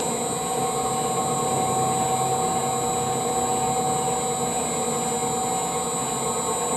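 TBM RC 800 vegetable cutting machine running with an empty bowl: its electric gear motors drive the feeder disc and the knife disc against each other. It gives a steady hum and whine with several constant tones, even throughout.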